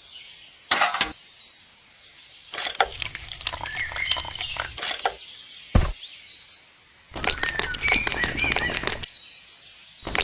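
Birds chirping over repeated bursts of clattering noise, with one sharp knock about six seconds in.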